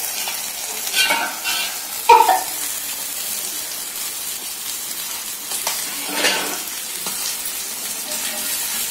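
Masala-coated fish pieces sizzling steadily on a hot tawa, with a few short metal clatters about one and two seconds in as the steel plate covering them is lifted off, and another near six seconds.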